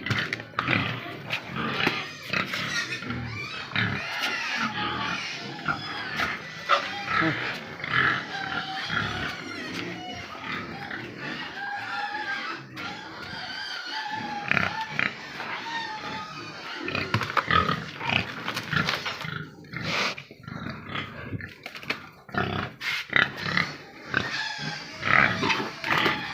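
A pen of pigs squealing and grunting continuously, clamouring for food.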